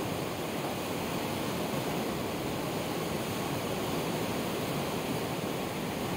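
The Durance river in flood, fast and turbulent, rushing past a bridge pier: a steady, unbroken noise of churning floodwater.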